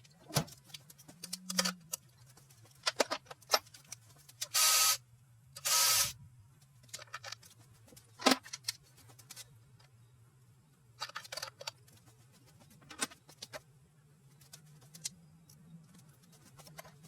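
Metal tools and engine parts clicking and knocking during disassembly of an engine on a workbench, with two short, louder noisy bursts a little after the middle and a faint steady hum underneath.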